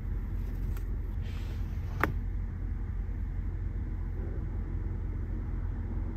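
Steady low rumble of a car heard from inside the cabin as it drives, with a single sharp click about two seconds in.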